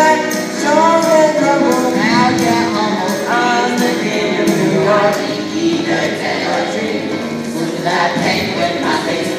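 A song with several voices singing together over percussion.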